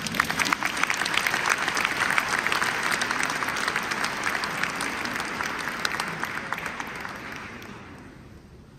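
Audience applauding, starting suddenly and dying away over the last couple of seconds.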